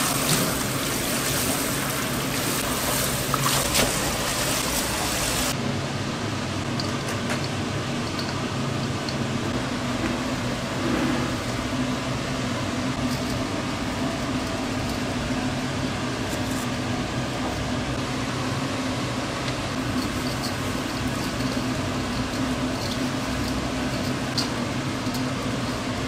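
Tap water running in a steady stream for about the first five seconds, stopping abruptly. After that a steady mechanical hum carries on, with scattered light clicks and knocks.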